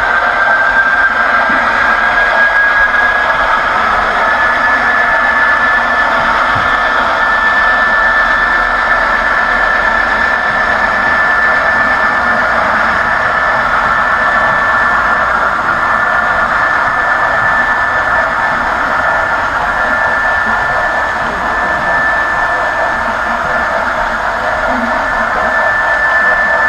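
HO-scale model train running on the layout: a steady high motor whine that rises slightly in pitch over the first few seconds and then holds, over a continuous rushing noise from the wheels rolling on the rails.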